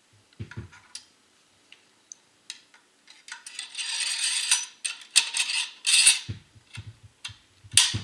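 SKS rifle's steel cleaning rod being slid back into its channel under the barrel: metal clicks and knocks, a scraping slide of about a second and a half a little over three seconds in, and a sharp click near the end as the rod locks in position.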